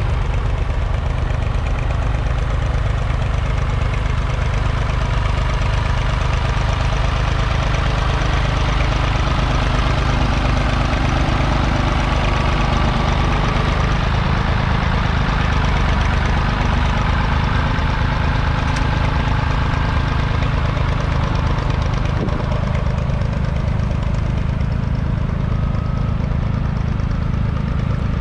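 Massey Ferguson 148's 2.5-litre three-cylinder diesel engine running steadily at an even speed, a loud low throb that does not change in pitch.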